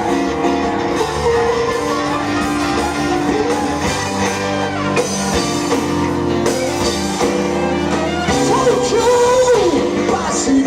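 A rock band playing live, with guitar and bass holding sustained chords and a singer's voice coming in near the end.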